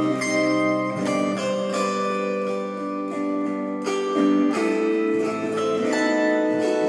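Autoharp played solo: a slow melody picked out over held chords, each plucked note and chord ringing on, with a new note or chord change about every half second to second.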